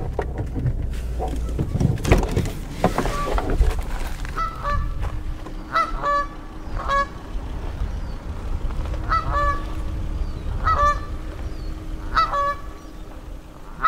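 Geese honking: about a dozen short calls, singly or in pairs, starting about four seconds in. Under them is a low rumble with a few knocks in the first seconds, and after it a faint steady hum.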